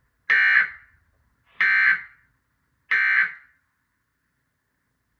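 Three short bursts of Emergency Alert System SAME data tones, about a second and a quarter apart: the end-of-message code that closes the alert.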